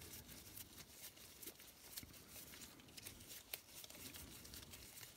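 Near silence with faint, scattered small clicks and rustles from gloved hands handling a metal lightsaber hilt.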